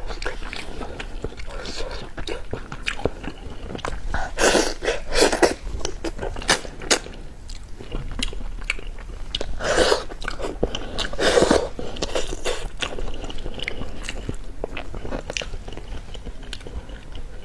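A person chewing and eating fish close to the microphone, with wet mouth clicks and smacks and a few louder bursts about four and ten seconds in.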